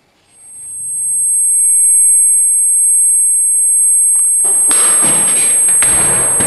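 Steady, very high-pitched ringing tone swelling in from silence, the film sound effect of ringing ears. A loud rushing noise builds up beneath it from about four and a half seconds in.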